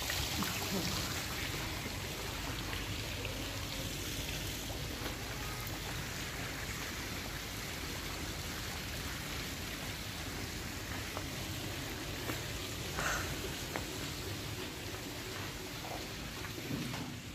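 Steady splashing of water from a swimming-pool fountain.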